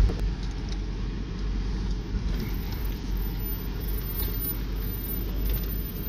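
SUV driving slowly over dirt ground, heard from inside the cab with a window down: a steady low engine and road rumble.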